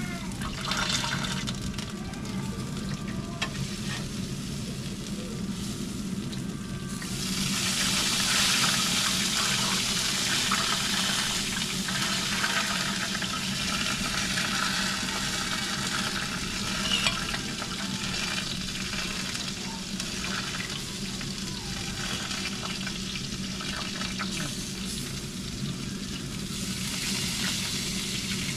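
Crackling sizzle from the open smoker as whole smoked chickens are lifted out, fat and juices sizzling on the hot surfaces. It grows louder about a quarter of the way in, eases off, and rises again near the end, over a low steady hum.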